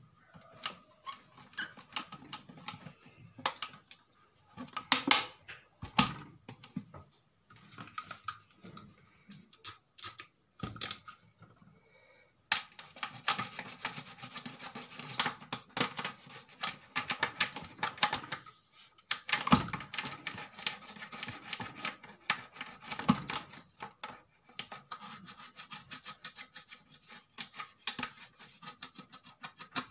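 Small brush scrubbing the plastic top of a food processor's motor base around the drive coupling: quick scratchy rubbing strokes with a few sharp knocks. The strokes come in short spells at first and run almost without a break from about halfway through.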